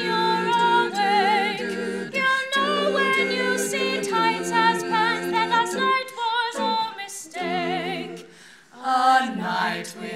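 Six-woman female vocal group singing a cappella in close harmony: held chords with vibrato on the top voice. The singing breaks off briefly about eight and a half seconds in, then starts again.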